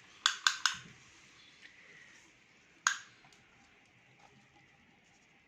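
A tape measure being handled while measuring: three sharp metallic clicks in quick succession, then a single click about two and a half seconds later.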